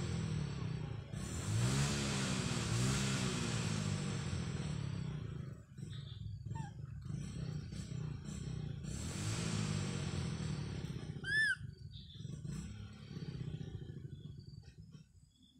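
A motor vehicle engine running, its pitch swelling and easing, loudest in the first five seconds and again around nine to eleven seconds. A short, high, arched chirp comes about eleven seconds in.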